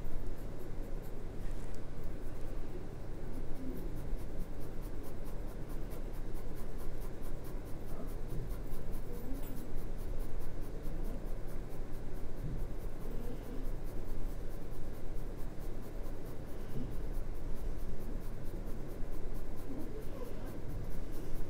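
Graphite pencil shading on drawing paper: the lead scratching steadily across the paper in continuous small strokes.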